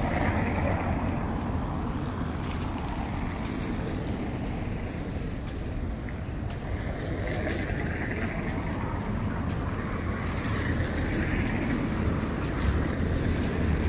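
Road traffic on a city street: a steady rumble of passing vehicles.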